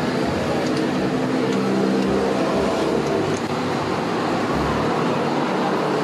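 Steady road traffic noise with the drone of passing vehicle engines, and a few faint small ticks.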